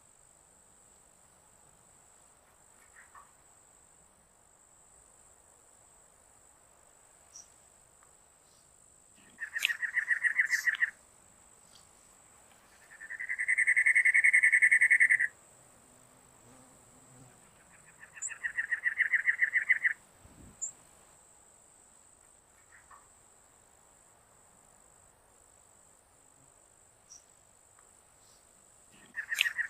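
Cactus wren singing: four bouts of rapid, harsh repeated notes, each a second or two long, with a steady high insect trill behind.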